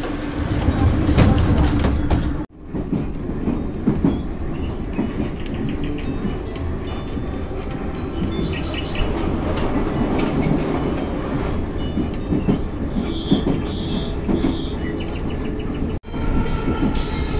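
Metro train running along an elevated line, heard from inside the car: a steady rumble with wheel clatter on the rails. Three short high beeps come about three quarters of the way through, and the sound cuts out sharply twice.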